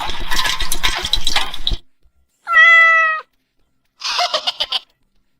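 A cat's single clear meow about two and a half seconds in, held for under a second with a slight rise, followed a little later by a shorter, rougher sound. Before the meow, a loud busy clatter of knocks cuts off abruptly.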